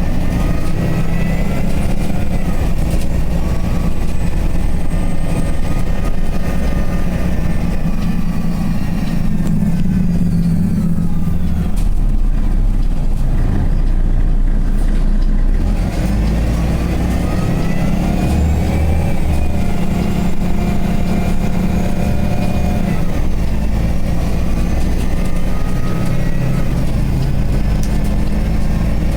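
Bus engine and driveline running under way, with a whine that climbs in pitch as the bus accelerates. It eases off about twelve seconds in, then climbs again as the bus pulls away.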